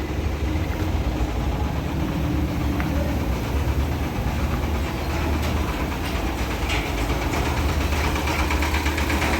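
Heavy truck diesel engine idling steadily with a low, even rumble.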